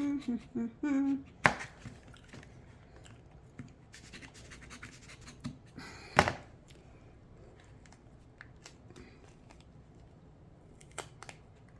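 An ice cream bean (Inga edulis) pod being pried open by hand: quiet scratching and a few sharp cracks of the hard shell, the loudest about six seconds in.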